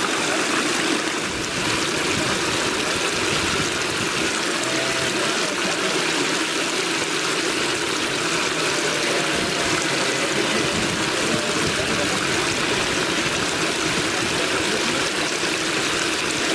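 Steady rushing of running water, even and unbroken, with faint distant voices underneath.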